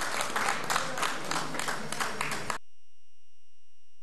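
Audience applauding with dense, rapid clapping that cuts off abruptly about two and a half seconds in, followed by a steady electronic tone.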